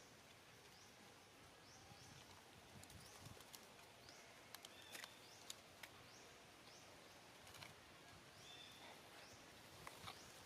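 Faint outdoor ambience with a small animal's short high chirps, each sweeping upward, repeated every half second to a second, and a few soft clicks.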